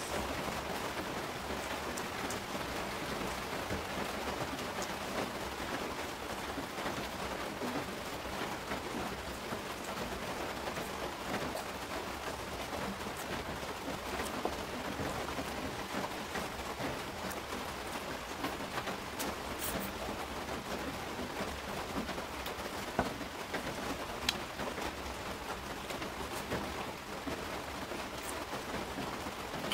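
Steady rain falling, an even hiss with a few faint clicks scattered through it.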